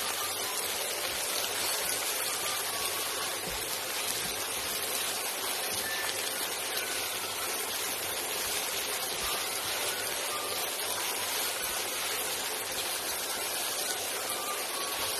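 Sliced onions sizzling steadily in hot oil in a frying pan as they are sautéed and tossed with a plastic spatula until golden brown.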